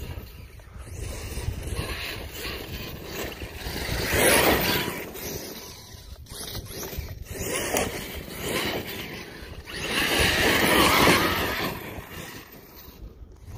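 Arrma Outcast 8S BLX brushless RC truck driving over grass in bursts of throttle, its motor and drivetrain whining up and fading. The two loudest surges come about four and ten seconds in.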